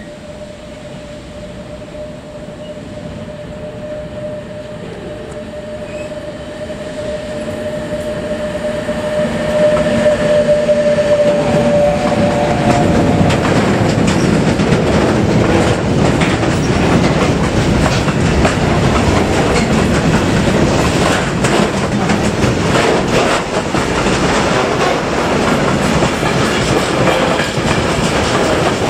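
Electric-hauled freight train approaching and passing at speed. It grows louder for about ten seconds, with a steady whine that fades out as the locomotive goes by. Then comes the rumble and clickety-clack of open goods wagons and tank wagons rolling past.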